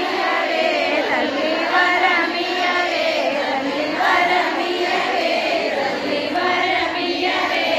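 A crowd of women singing together in unison, led by a woman singing into a microphone.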